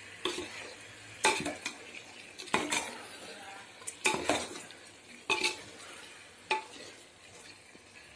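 Metal spoon stirring chicken masala in a metal pot, scraping and clinking against the pot's side in short strokes about every second and a half.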